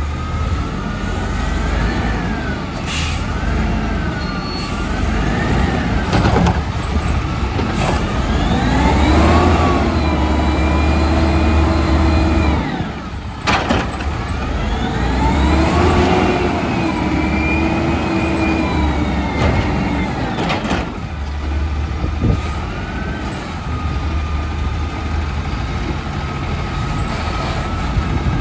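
Scorpion Mantis front-loader garbage truck's engine revving to drive the hydraulics as the forks lift a metal dumpster over the cab and lower it again, with a whine rising and holding twice. Several metal bangs come from the bin and arms, the sharpest about halfway through as the bin is dumped overhead.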